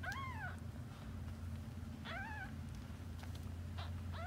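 Kitten meowing: three short, high-pitched mews about two seconds apart, each rising and then falling in pitch, over a steady low hum.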